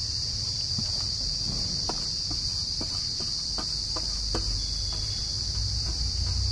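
Steady high chirring of crickets, with a run of light taps and clicks as sliced onions are tipped and scraped off a steel plate into a clay kadhai.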